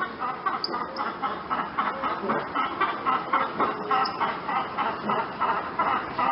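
Chickens clucking, a steady run of short repeated clucks with a few brief high chirps among them.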